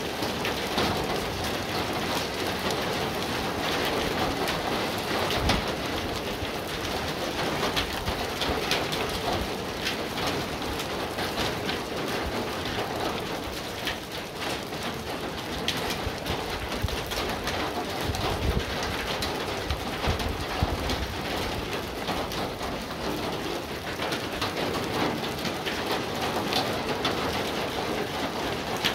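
Steady heavy rain from a thunderstorm falling on grass and a pond, dense with sharp drop hits. A low rumble comes in about two-thirds of the way through.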